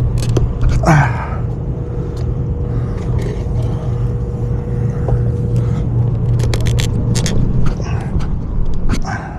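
Steady low hum and rumble of a commercial rooftop HVAC unit running, with a faint steady tone above it that fades out about three-quarters of the way through. A cluster of sharp clicks and knocks comes in the last third.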